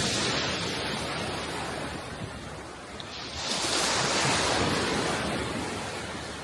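Sea waves breaking and washing ashore, twice: one surge at the start that fades, and a second, louder one about three and a half seconds in that swells and dies away.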